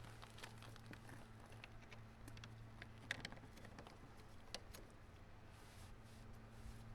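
Near silence: a faint steady low hum with a few scattered faint clicks and taps.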